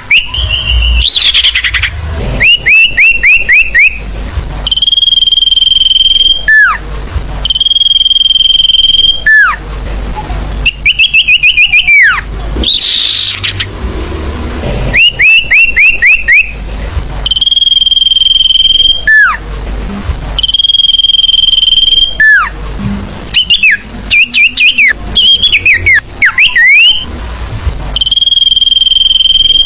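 Recorded sirfu song played as a bird-lure call: quick runs of about five short down-slurred chirps alternating with long, level, high whistles that each end in a sharp downward slur, repeating over and over.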